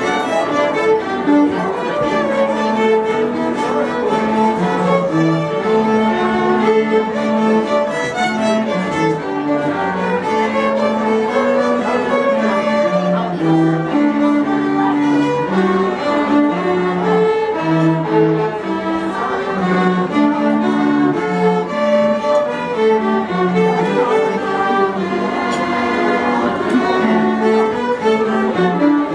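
Small string ensemble of violins and a cello bowing a Christmas carol, with held notes moving in a steady melody and bass line.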